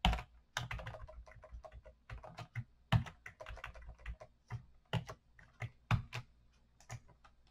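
Typing on a computer keyboard: a run of irregular keystroke clicks, thinning out near the end.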